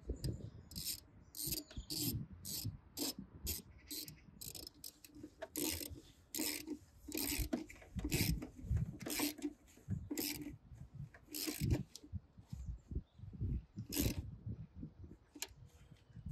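Hand ratchet and socket clicking in short irregular runs, about one or two a second, as a car battery terminal clamp nut is tightened by hand.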